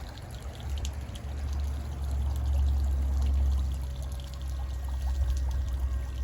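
Wind rumbling on the microphone, with a faint steady whine from the running robotic lawn mower, clearest from about four seconds in.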